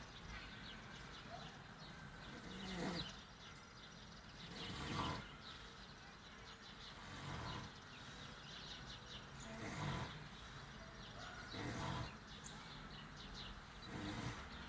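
A man snoring in his sleep, a rough rasping breath about every two and a half seconds.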